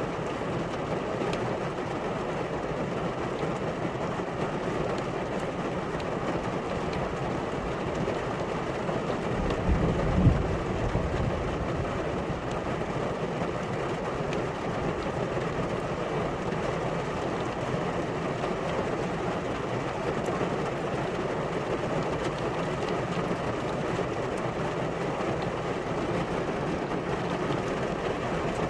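Steady rain falling, an even hiss, with a brief low thud about ten seconds in.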